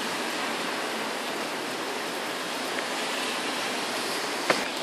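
Heavy rain pouring down in a thunderstorm, making a steady, even hiss, with one sharp tick near the end.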